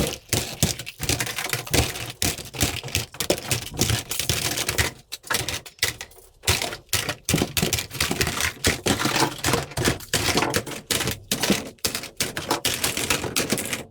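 Rapid, irregular clicks and clacks, several a second, like keys or hard small parts striking.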